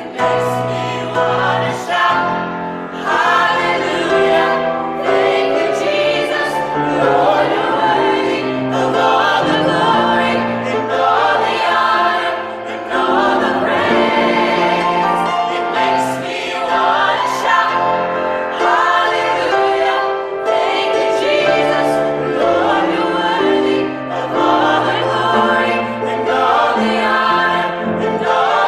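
A vocal ensemble sings a contemporary gospel worship song together in several parts, with sustained low notes under the voices.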